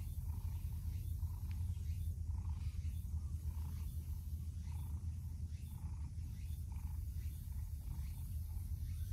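Cat purring close to the microphone: a steady low rumble with a faint, soft pulse about once a second.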